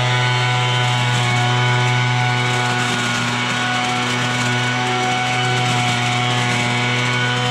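Troy-Bilt 27cc two-stroke gas leaf blower running at a steady speed while blowing leaves.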